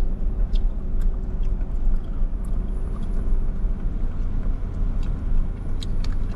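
Steady low rumble of a car driving at road speed, heard from inside the cabin, with a few faint clicks scattered through it.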